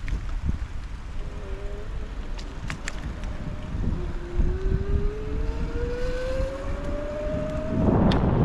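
Bicycle riding over tarmac: tyre rumble and wind buffeting the handlebar microphone. From about four seconds in, a whine rises steadily in pitch, and a louder rush of noise comes near the end.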